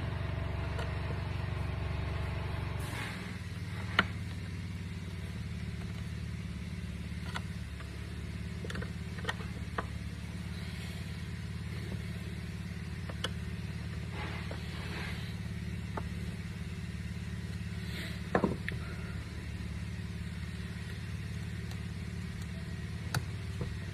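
A steady low hum that drops slightly about three seconds in, with scattered light clicks and knocks of parts being handled, the sharpest about four seconds in and a double knock near the end.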